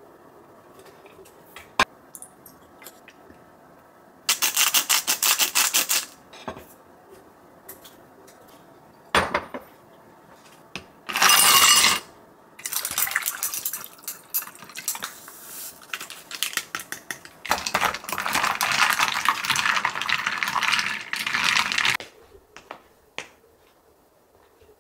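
Ice cubes scooped and tipped into a glass measuring cup, rattling and clinking in several loud stretches, along with plate and chopstick handling.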